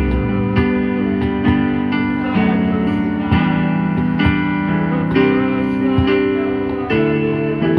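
Guitar music, with a new chord struck about once a second.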